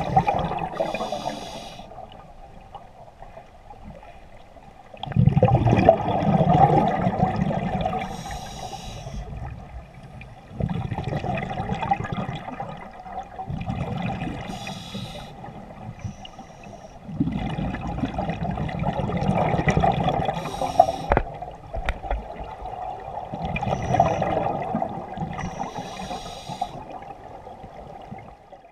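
Scuba regulator breathing underwater: a short hissing inhale followed by a longer rush of exhaled bubbles, repeating about every six seconds, five breaths in all.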